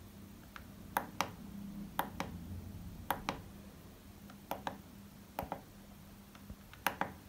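Tactile push buttons on an XY-CD60 charge/discharge control module clicking as a finger presses them: about six quick double clicks, press and release, roughly a second apart. A faint low steady hum runs underneath.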